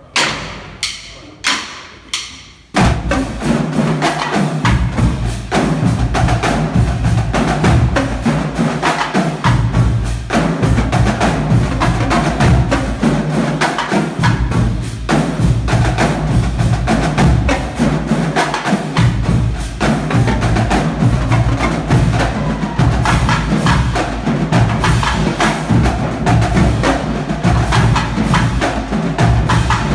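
Marching drumline: four sharp, evenly spaced clicks count it off, then snare drums, tenor drums, bass drums and crash cymbals come in together about three seconds in and play a loud, dense cadence.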